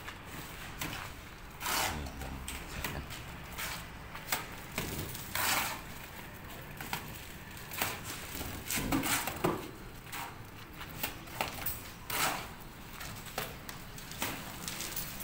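Irregular short scrapes and sharp knocks, one every second or two, from hand work on a building wall being plastered.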